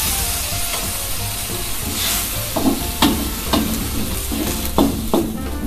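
Chicken and cabbage sizzling in an aluminium wok with a little water just added. About halfway through, a spatula stirring and scraping against the pan gives about five short knocks.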